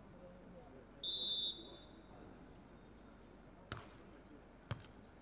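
A referee's whistle blows once, a short steady blast about a second in. Then a volleyball is struck twice by hand, two sharp hits about a second apart near the end: the serve, then the receiving pass.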